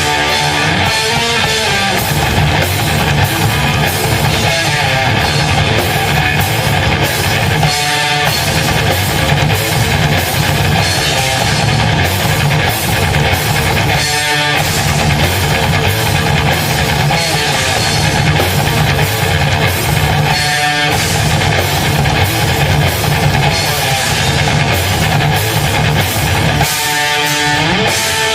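Live heavy metal band playing loud and dense on guitars and drum kit. About every six seconds there is a short break where a few guitar notes ring out on their own.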